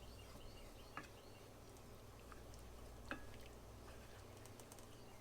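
Faint sounds of a lemon and chicken-broth pan sauce simmering quietly in a skillet, with two light clicks about one and three seconds in, over a low hum.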